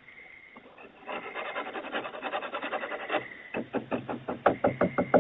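Scratching on a back door for about two seconds, then rapid knocking on it, about five knocks a second, picked up by a doorbell camera's microphone with a faint steady high whine underneath.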